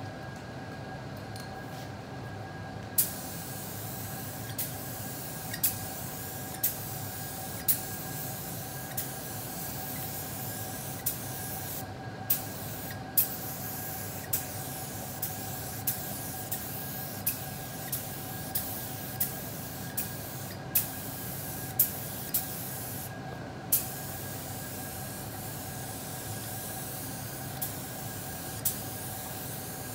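DeVilbiss SRi Pro Lite spray gun hissing with compressed air as it sprays clear leather lacquer in passes. The hiss starts a few seconds in and breaks off briefly several times between passes. Frequent sharp clicks and a steady hum run underneath.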